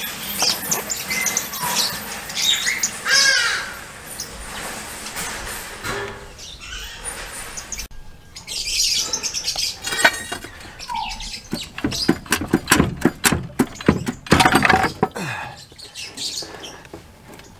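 Birds chirping, with a run of sharp metallic clicks and knocks in the second half, loudest about twelve to fifteen seconds in, from a pry bar and tools working a gearbox loose under a car.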